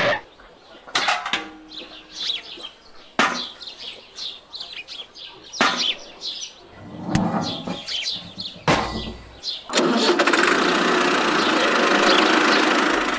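Birds chirping, with several sharp knocks. About ten seconds in, a small motor starts running steadily, the toy tractor's motor.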